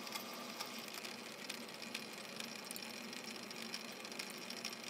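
Metal lathe running: a steady mechanical hum with frequent light ticks.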